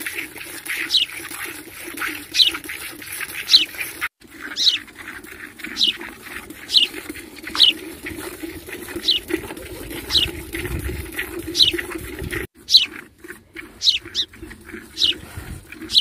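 Hand milking a cow into a steel pail: short hissing squirts of milk hitting the frothy milk in the bucket, one with each pull on a teat, coming roughly one to two a second.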